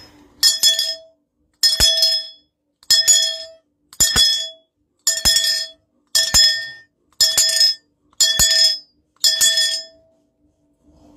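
A bell-like clink struck about once a second, ten strikes in all with the first two close together, each ringing briefly before the next. The ringing stops about ten seconds in.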